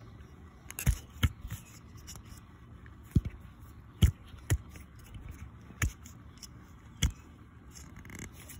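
Close handling noise: about eight sharp, irregular knocks and scrapes as a hand works an outboard water-pump housing right against the phone's microphone.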